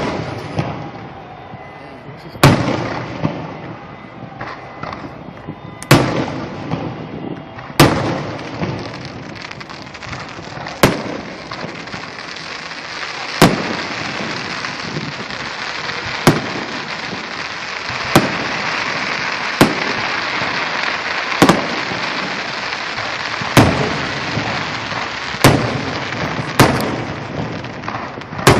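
Aerial fireworks display: a dozen or so sharp shell bursts, one about every two seconds, with continuous crackling in between that grows denser from about the middle on.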